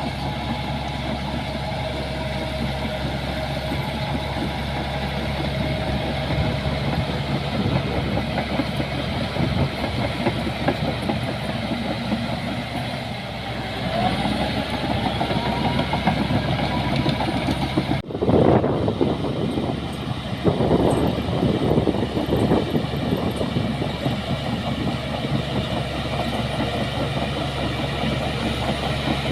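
Bulldozer's diesel engine running steadily. About 18 seconds in the sound breaks off sharply and comes back louder and rougher, rising and falling as the machine works.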